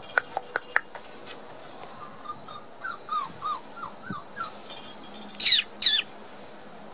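A quick run of sharp clicks, then a string of short, falling, high squeaks from a month-old Border Collie puppy. Two louder, higher yelps come near the end.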